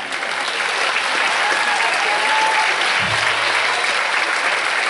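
Audience applauding steadily after a children's choir song.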